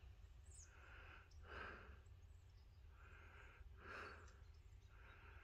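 Near silence with faint, slow breathing close to the microphone, a soft breath in and out about every two seconds, over a low steady rumble.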